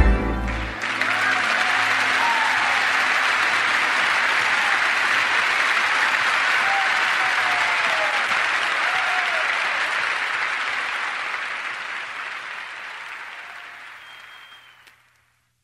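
The music cuts off within the first second, then a crowd applauds steadily and fades out over the last few seconds.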